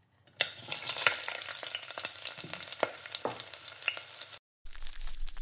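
Mustard oil sizzling and crackling in a hot stainless steel frying pan, with scattered sharp pops. The sizzle cuts off suddenly near the end, giving way to a steady low hum.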